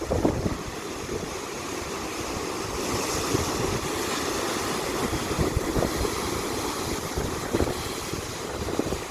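Ocean surf washing on the shore, with wind buffeting the microphone in low, uneven gusts. The hiss of the surf swells about three seconds in.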